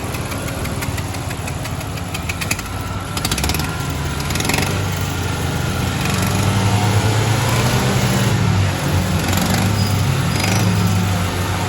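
Honda Civic engine running, with a rapid ticking in the first few seconds; the engine gets louder about four to six seconds in. This is the engine noise the mechanic is checking as a fault.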